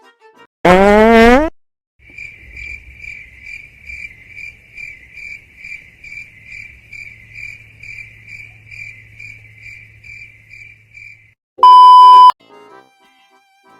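Comedy-edit sound effects: a short, loud rising tone about a second in, then a cricket-chirp effect repeating steadily for about nine seconds. A loud, high, steady beep lasting under a second cuts it off near the end.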